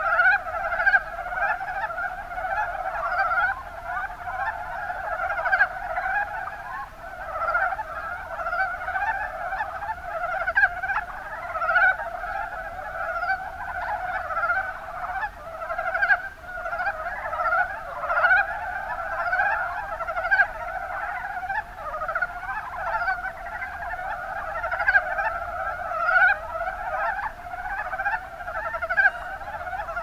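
Mountain brown frogs (Rana ornativentris) calling in a dense chorus, short rapid croaks overlapping one another without a break.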